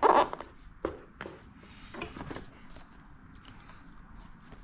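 Paper and cardboard packaging being handled: scattered soft rustles and light knocks as a paper quick start guide is lifted out of a cardboard box, with a louder one right at the start.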